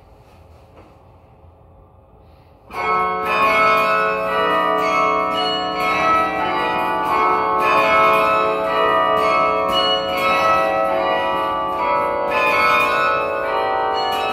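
Quiet for nearly three seconds, then the 54-bell Yale Memorial Carillon starts playing from its baton keyboard: many bells struck in quick succession, each one ringing on under the next.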